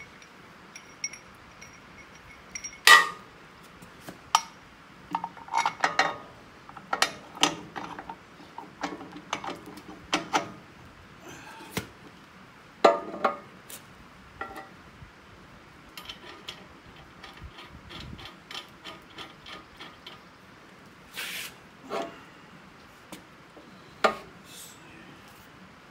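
Steel parts clanking and clinking as a hydraulic thumb's mounting bracket and pins are handled and fitted to a mini excavator's stick: irregular metal knocks, the loudest about three seconds in and again near the middle, with a stretch of quick light ticking a little past the middle.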